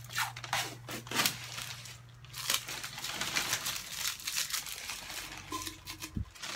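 Clear plastic tape being peeled off the lid of a plastic coin bank and crumpled in the hands: a run of irregular crinkling and rasping. A faint steady hum sits under it, and a short low thump comes near the end.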